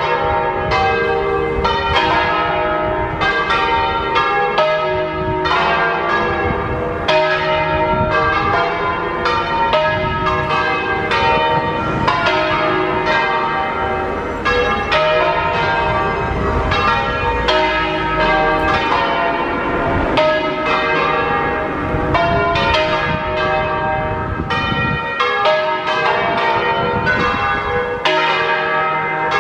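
A ring of six swinging church bells in a full peal, tuned to a slightly flat E-flat, with bells cast by Mazzola in 1901 and two by Vallino of Bra in 1870. The bells strike several times a second, their strokes overlapping in an unbroken clangour with no pause.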